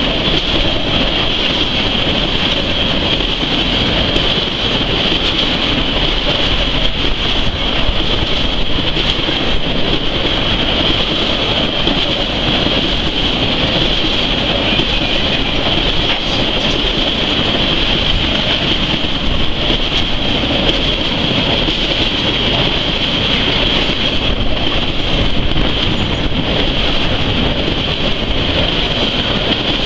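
Freight train of tank cars rolling past at close range: a steady, loud rumble and rail noise from the wheels, with a constant high-pitched hiss over it.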